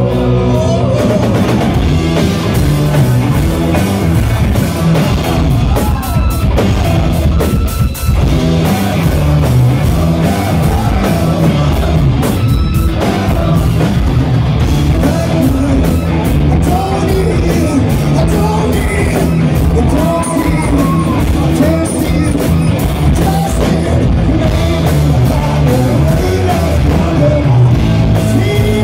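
Live rock band playing loud, with electric guitars, bass and a drum kit driving steadily under several singers sharing the vocals, heard from the audience.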